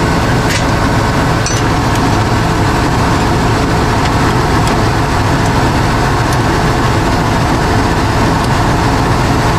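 Combine harvester's diesel engine running steadily with a loud, even low rumble.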